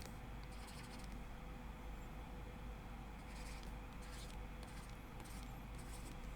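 Faint scratchy strokes over a steady low electrical hum: the sounds of someone working a computer's input device while sculpting.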